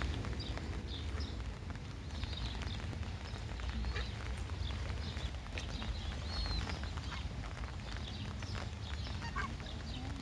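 Mallard ducklings peeping: many short, high-pitched calls scattered throughout, over a steady low rumble.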